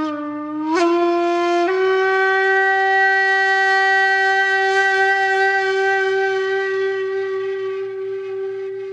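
Background music: a solo wind instrument plays one long held note, reached by two small upward steps in pitch in the first two seconds, then slowly fades toward the end.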